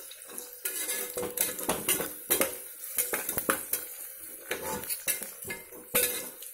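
Metal spoon scraping and clinking against the inside of a pressure cooker, stirring sliced onions and green chillies frying in oil, with irregular knocks over a soft sizzle.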